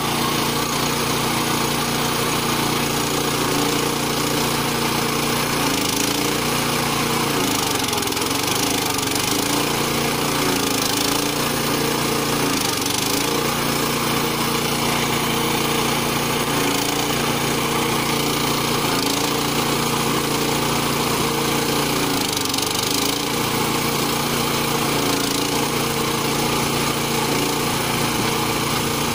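Motor and hydraulic pump of a homemade log splitter running steadily. The note dips briefly several times as the ram is put under load forcing logs through the wedge.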